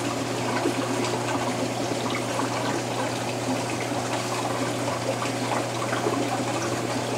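Water running steadily in a reef aquarium's circulation, with a steady low hum underneath.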